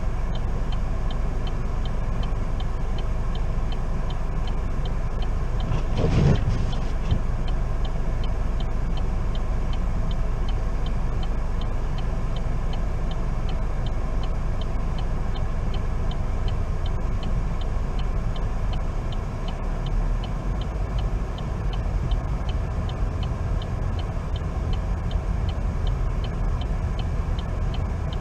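Steady low rumble of road and engine noise inside a car's cabin, driving slowly through snow, with a regular light ticking throughout. A brief louder whoosh about six seconds in.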